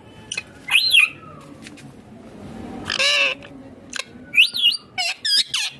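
Indian ringneck parakeet squawking in short, sharp calls that swoop up and down in pitch: one about a second in, a longer call around three seconds, then a quick run of short calls near the end.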